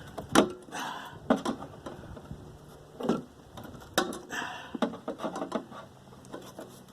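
Irregular sharp clicks, taps and short scrapes of hand tools working on metal, a few louder snaps among them, as a water heater part is cut and pried at.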